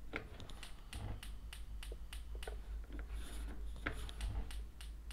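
Handling noise from a microphone cable being moved about: irregular light clicks and rubs over a steady low hum.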